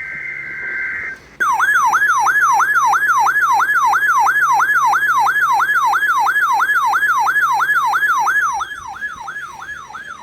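A short burst of Emergency Alert System data tones (a SAME header burst) is followed by a loud siren-like alert tone that sweeps down and up in pitch about three times a second. The tone drops in level a little over eight seconds in, ahead of a voice alert for a thunderstorm watch.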